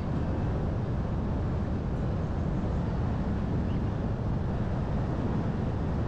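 Steady low rumble of a car driving, heard from inside the cabin: tyre, road and engine noise.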